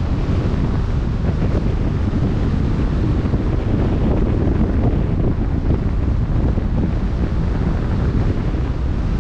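Wind buffeting the microphone, a steady low rumble over the wash of waves on open sea.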